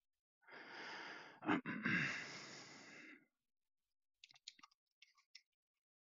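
A person sighing close to the microphone, a breathy sound lasting about three seconds, followed by a few faint clicks.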